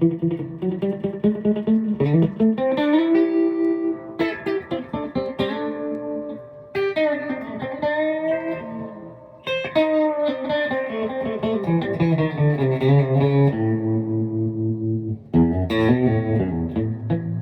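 Mid-1960s Magnatone Tornado electric guitar played through a mid-1960s Danelectro DM25 amplifier: a mix of strummed chords and single-note runs. A chord is held and then cut off sharply about two seconds before the end, and the playing starts up again straight after.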